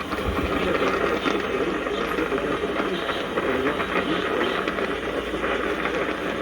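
Radio receiver picking up a weak, static-laden signal: steady hiss with a faint, garbled voice underneath.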